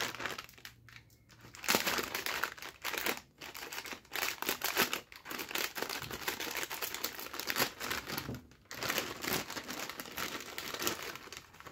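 Crax Rings plastic snack packet crinkling as it is squeezed and worked open by hand, in irregular rustles with short pauses, starting about two seconds in.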